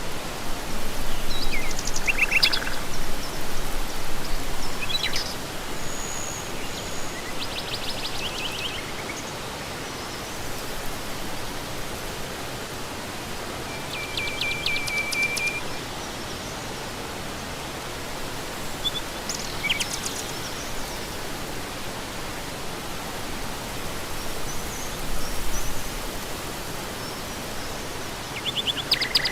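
Rural outdoor ambience: a steady rushing noise with birds chirping now and then, including a longer trill about halfway through.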